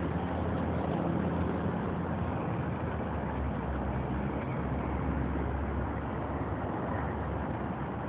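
Steady road traffic noise: a continuous low rumble of passing vehicles under an even hiss.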